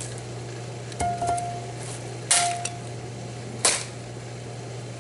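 Metal bat striking the broken remains of a plastic landline phone three times, sharp hits about a second and a half apart; the first two leave a short ring.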